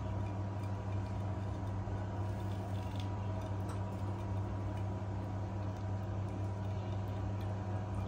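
A steady low hum throughout, with faint scattered ticks and rustles from budgerigars bathing in wet leaves in a glass dish.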